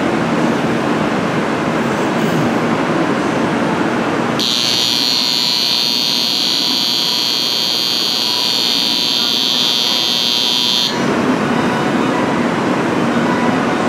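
Railway platform departure bell: a steady high electric ringing that starts about four seconds in and cuts off abruptly some six seconds later, over the steady noise of trains and the station.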